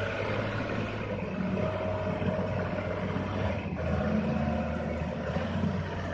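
Heavy vehicle diesel engine running steadily under load, its note shifting about three and a half seconds in.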